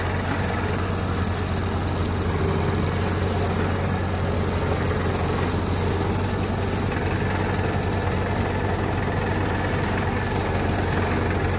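Tractor engine running steadily at an even speed. It is a constant low hum with no change in pitch or level.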